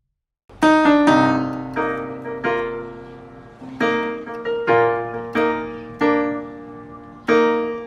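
Piano playing a slow sequence of single notes and chords, each struck and left to ring and fade, starting about half a second in after a moment of silence.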